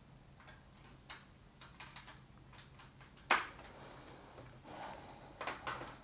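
Scattered small clicks and knocks of equipment being handled while a battery is changed, with one sharper click about three seconds in and a short run of knocks and rustling near the end, over a faint steady hum.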